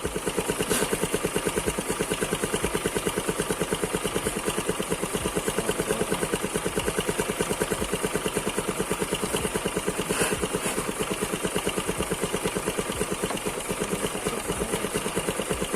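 Honda Vario scooter's single-cylinder engine idling with a rough, pulsing 'helicopter' sound ('ngorok'), the sign of a loose bolt on the small air-filter box under the seat letting the intake leak. Two light clicks, about a second in and near ten seconds in.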